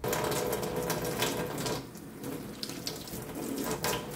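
Tap water running and splashing into a sink as scissors are scrubbed and rinsed clean with soapy water; the flow sound drops about two seconds in and then picks up again.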